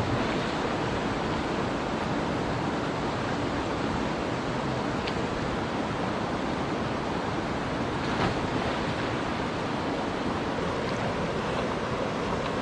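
River water rushing steadily, with a light knock about eight seconds in.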